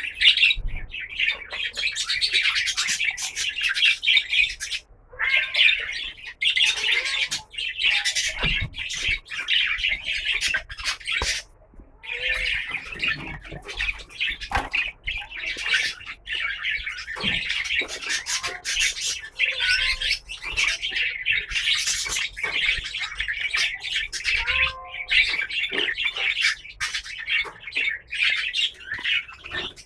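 Caged birds chirping and chattering in a dense, continuous stream, broken by short pauses about 5 and 12 seconds in.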